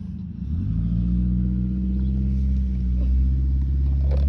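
A motor vehicle engine running close by: a low, steady hum that comes up with a short rise in pitch about half a second in and then holds steady.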